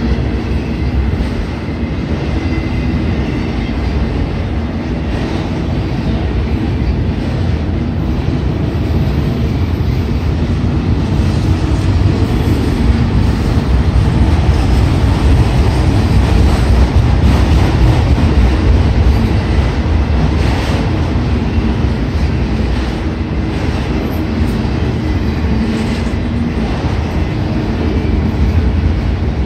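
Freight train of enclosed autorack cars rolling past close by: a steady rumble of steel wheels on rail that swells a little around the middle, with a few faint clicks here and there.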